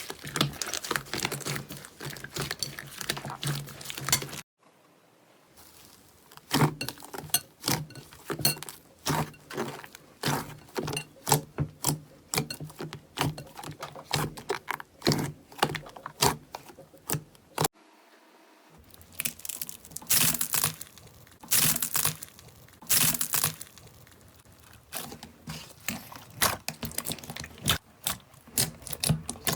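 Slime being squeezed, poked and stretched by hand, giving a rapid run of sticky clicks and crackling pops. The sound pauses twice, about four seconds in and again just past the middle.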